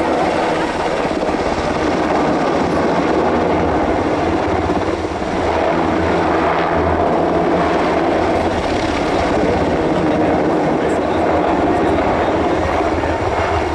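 Sikorsky UH-60 Black Hawk twin-engine helicopter in display flight: a loud, steady sound of rotors and engines, with a brief dip about five seconds in.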